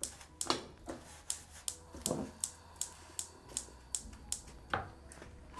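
A run of short, sharp clicks, about two to three a second, evenly paced.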